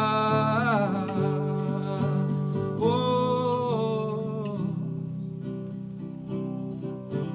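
Acoustic guitar strummed and picked, with a man singing over it: he holds a wavering note at the start and another about three seconds in, then the guitar plays on alone.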